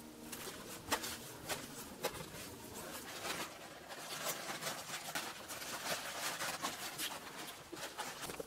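Clumps of moss being stuffed into a woven plastic sack: irregular rustling and crinkling with many small crackles and soft crunches.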